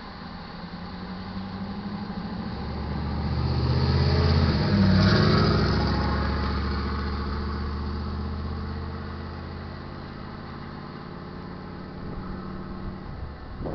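GE diesel locomotive passing close by: its engine's steady tone grows louder, drops in pitch as it goes past about five seconds in, then fades away over the running noise of the train.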